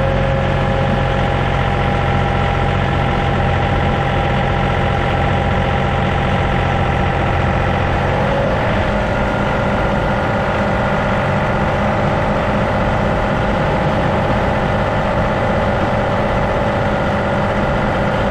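John Deere 2038R compact tractor's three-cylinder diesel engine running steadily, with a whining tone over it. About eight and a half seconds in, the whine drops in pitch and the engine note changes.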